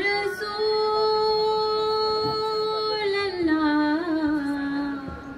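A woman's voice singing a naat: one long held note, then, about three seconds in, a slide down to a lower note that is held and fades near the end.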